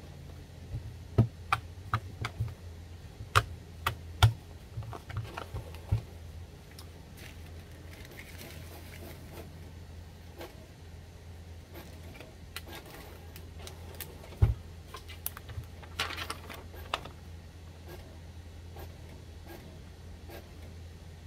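Irregular small clicks and taps of plastic parts being handled, in two clusters (in the first few seconds and again past the middle), over a steady low hum.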